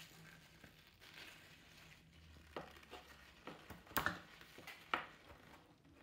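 Faint scraping of a hooked stripping knife cutting round the PVC outer sheath of a steel-wire-armoured cable, with a few short sharp scrapes, the loudest about four seconds in.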